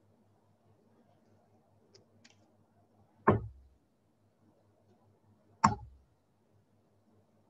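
Two steel-tip darts striking a bristle dartboard, about two and a half seconds apart, each a sharp hit with a short low thud.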